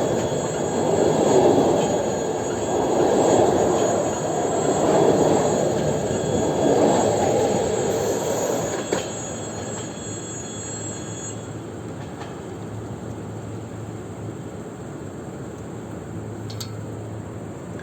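Train passing close by: wheels rumbling on the rails in repeated swells with a high steady squeal above them. About nine seconds in the rumble drops to a quieter, even sound as the train moves away.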